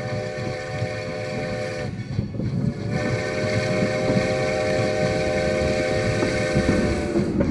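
Steam locomotive's chime whistle: one long blast breaks off about two seconds in, and a second long blast starts a second later and holds for about four seconds. Beneath it is the low rumble of the approaching train, slowly growing louder.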